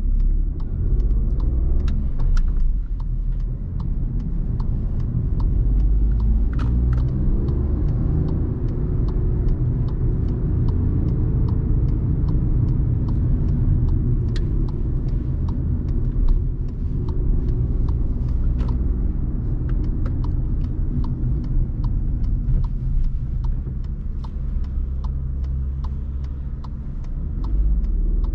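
Interior sound of a 2019 Volkswagen Polo's 1.0-litre three-cylinder petrol engine and low road rumble while driving. The engine note climbs over the first several seconds and eases off around the middle. Many small sharp ticks run throughout.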